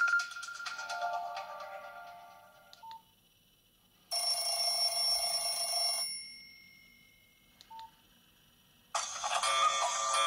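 Nokia 7230 mobile phone playing short electronic ringtones through its small speaker, one after another: a tone fading out, then a two-second tone, then another starting near the end, with a short beep between each.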